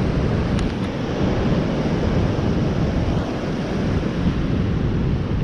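Surf breaking on a sandy beach, mixed with wind buffeting the microphone: a steady, rumbling rush of noise.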